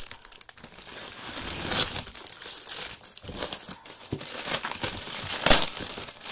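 Plastic wrap crinkling as plastic-wrapped storage cases are handled and pulled from a taped cardboard box, with a sharp louder crackle about five and a half seconds in.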